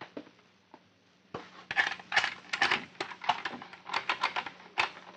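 Radio-drama sound effects: a few last soft footsteps, then, about a second and a half in, a run of sharp irregular rattling and clinking as a jeweler's tray of necklaces is handled.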